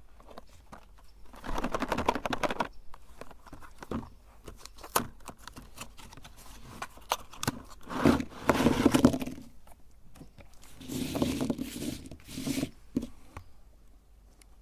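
Oreo cookies crunching and crackling as they are crushed in a meat grinder, in three bursts of dense cracking with scattered single clicks between them.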